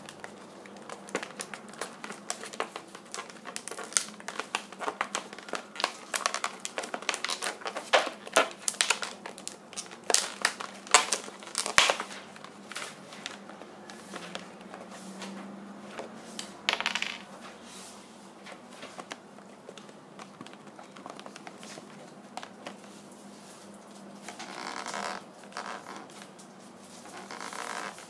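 Latex modelling balloons squeaking and rubbing against each other as they are twisted and fitted together by hand, with a dense run of sharp squeaks and snaps in the first half and softer, sparser rubbing after that.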